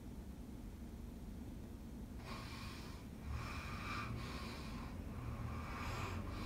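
A person breathing close to the microphone: a run of breaths, about one a second, starting about two seconds in, over a faint low rumble.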